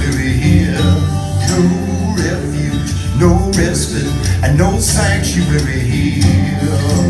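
Recorded guitar-and-bass song in a country or folk style, with a full, steady bass line, played back over Denon Genova SC-900 floor-standing loudspeakers and picked up in the room.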